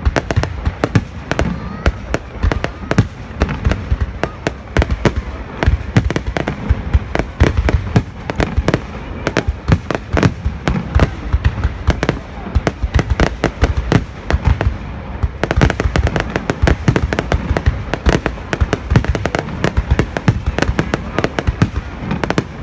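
Fireworks display: shells bursting in rapid, unbroken succession, many sharp bangs a second with heavy low booms.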